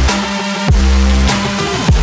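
Electronic music with a heavy held bass line and a drum hit about every two-thirds of a second, each followed by a falling pitch sweep.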